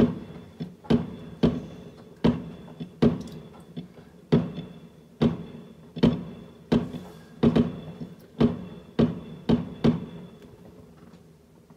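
Aerial fireworks bursting in a rapid series of bangs, about two a second, each with a short echoing tail. The bangs thin out and fade near the end.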